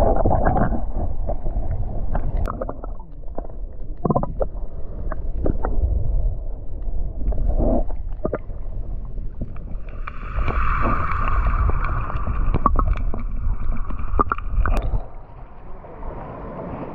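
Muffled underwater sound picked up by a submerged camera in shallow sea: a low rumble of water moving against the camera, with scattered clicks and knocks. A steadier higher hum joins for several seconds past the middle, and the sound drops off suddenly near the end as the camera comes up to the surface.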